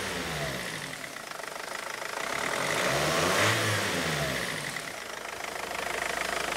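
BMW 320d's four-cylinder diesel engine running and revved once: the pitch climbs to a peak about three and a half seconds in, then falls back to idle.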